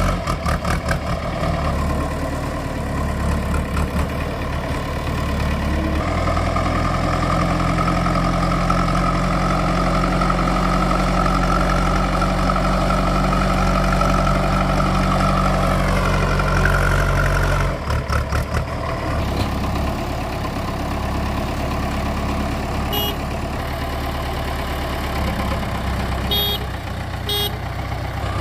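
Heavy diesel engine of construction machinery running under working load, its note rising and holding from about six seconds in and dropping back a little after halfway. A few short metallic clinks near the end.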